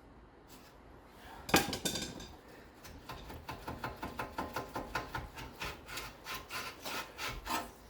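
Ratchet wrench being worked back and forth on a suspension bolt: a fast, even run of short rasping clicks, about four or five strokes a second, after a single metal knock.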